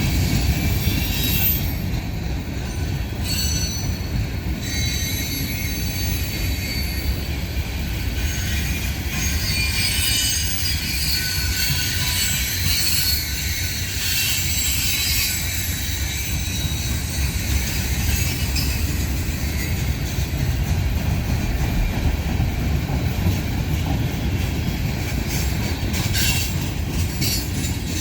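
Freight train rolling past with a steady low rumble of wheels on rail and intermittent high-pitched wheel squeal.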